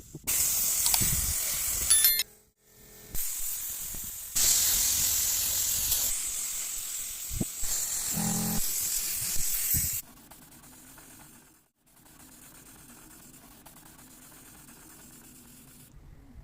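Loud hissing spray of compressed air from a workshop air tool, in long bursts that start and stop abruptly. A brief pitched squeal comes near the middle, and the last few seconds are a much quieter steady hum.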